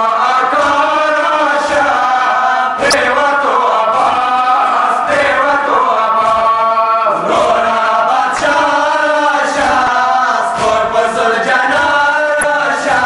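A group of men chanting a noha, a Shia mourning lament, in unison into a microphone. Faint thuds come roughly every second beneath the chant.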